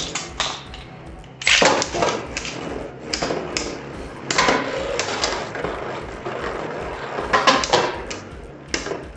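Beyblade Burst spinning tops, 3D-printed, clattering and clacking as they clash, with a burst of hard hits about a second and a half in and another near the end.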